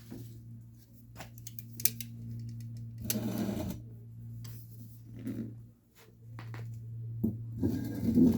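Metal door latch parts clicking, scraping and rattling against the inside of a steel car door as the latch is worked into place over its mounting holes, with louder handling about three seconds in and near the end. A steady low hum runs underneath.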